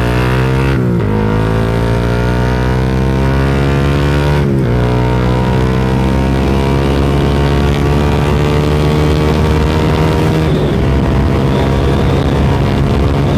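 Suzuki Satria FU single-cylinder four-stroke engine breathing through a Tritech Ronin Katana SE aftermarket exhaust, accelerating hard. The revs climb and drop at an upshift about a second in and again about four and a half seconds in, then climb slowly and hold high at speed.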